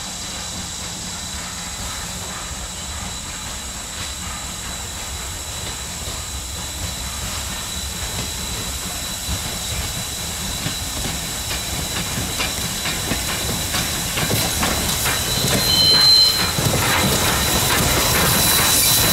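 Norfolk and Western No. 475, a 4-8-0 steam locomotive, approaching tender-first with its train: steam hiss and exhaust chuffs mixed with wheels clicking over the rails, growing louder as it nears. A brief high squeal about sixteen seconds in is the loudest moment.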